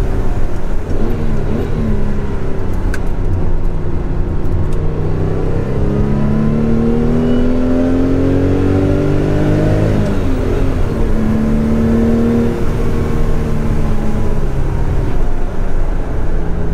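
1970 Porsche 911 S's air-cooled 2.2-litre flat-six heard from inside the cabin while driving: the revs climb for several seconds, drop at a gear change about ten seconds in, rise briefly again, then ease off.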